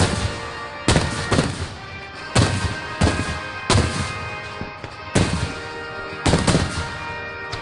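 Aerial firework shells bursting, about nine sharp booming bangs spaced half a second to a second and a half apart, over background music.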